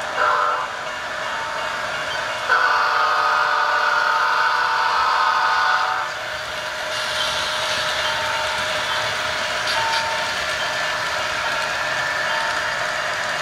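Model diesel locomotive's sound-decoder horn sounding a multi-note chord in blasts for a grade crossing: a short blast at the start and a long one from about 2.5 to 6 seconds in. Then the steady running noise of the train rolling past.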